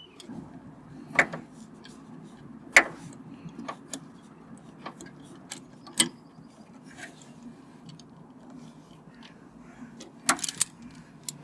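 Scattered metallic clicks and clinks of hand tools and parts as a coil pack and spark plug are worked out of an engine, with louder knocks about a second in, near three seconds, at six seconds and a double clatter near the end, over a steady low hum.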